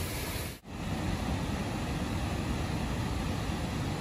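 Steady rushing roar of floodwater jetting from the Three Gorges Dam's discharge outlets into the river below. It drops out for an instant about half a second in, then carries on.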